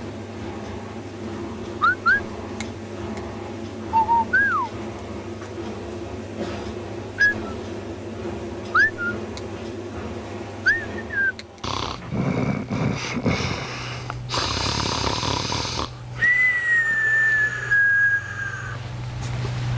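A sleeping cat snoring, with a short high whistle on its breaths every two seconds or so. About twelve seconds in the sound changes to rustling noise, with one long, slightly falling whistle lasting a couple of seconds near the end.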